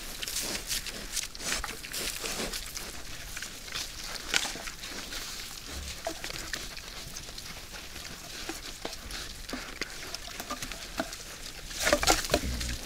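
A group of wild boars feeding at a bait pile: a dense, irregular run of short crunching and rustling clicks, with a louder cluster near the end.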